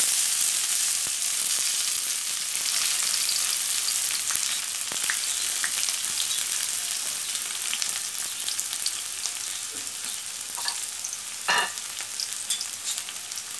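Chopped onions sizzling and crackling in hot oil in a karahi, loudest as they hit the oil and easing off gradually. A brief knock about eleven and a half seconds in.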